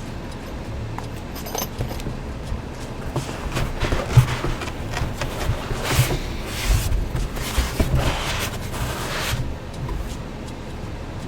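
Packaging rustling and small parts being handled, in a run of rustling bursts through the middle.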